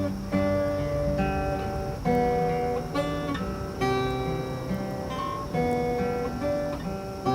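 Music: acoustic guitar strumming chords, with a new strum and chord change about every two seconds.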